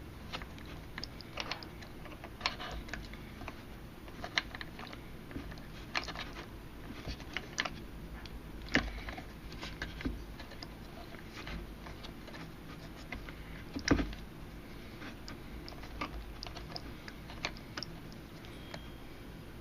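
Paracord being handled and tied into knots: scattered small clicks and rustles at an irregular pace, the loudest about nine and fourteen seconds in, over a faint steady hum.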